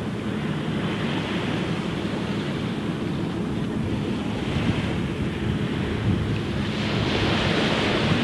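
Small waves breaking and washing up a sand beach, swelling every few seconds, with wind rumbling on the microphone.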